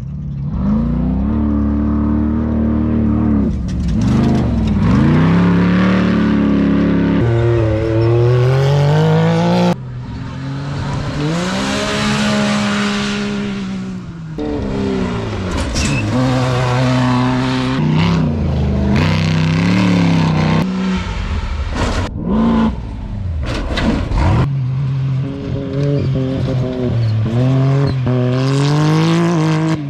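Off-road desert race vehicles' engines revving hard and climbing through gear shifts, pitch rising then dropping back at each shift, in short clips that cut abruptly from one vehicle to the next. A rush of wide noise comes as one passes about a third of the way in.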